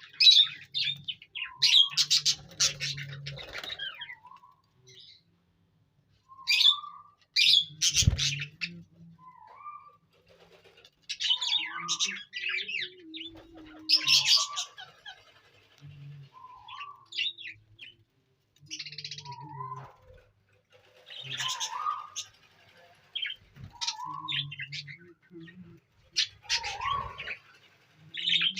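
Budgerigars chirping and chattering in a colony, in intermittent bursts of quick warbling notes with short gaps between, and a single low thump about eight seconds in.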